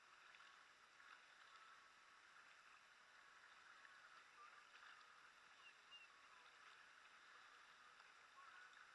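Faint water sounds from kayak paddling: light lapping and dripping with small scattered ticks as the paddle blades dip and lift.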